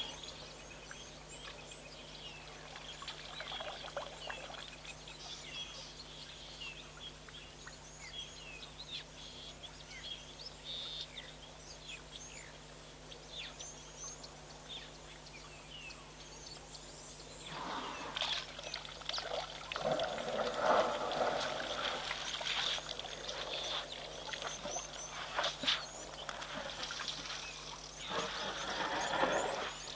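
Small birds chirping and twittering, with a faint steady electrical hum underneath. About halfway in, louder irregular splashing and scuffing close to the microphone joins in and carries on in uneven spells.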